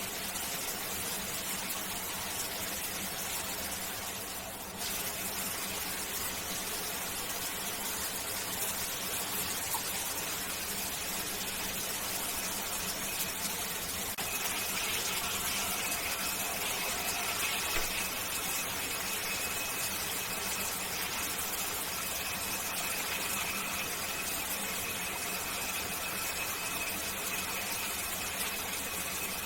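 Shower running: a steady hiss of water spray. About halfway through, a faint, high, steady whistling squeal joins the spray and holds.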